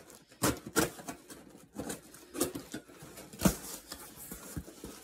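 Scissors snipping through packing tape and cardboard on a shipping box: a run of irregular sharp clicks and crackles, the loudest about three and a half seconds in.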